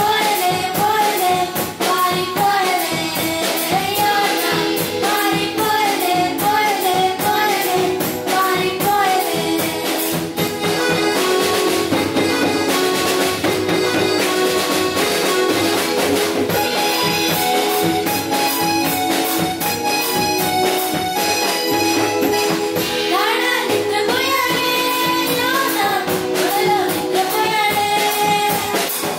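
A group of girls singing a song together in unison, backed by electric guitar and a steady drum beat.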